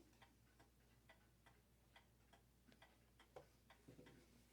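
Faint, steady ticking of a mantel clock's modern movement, about two ticks a second, with one slightly louder click a little over three seconds in.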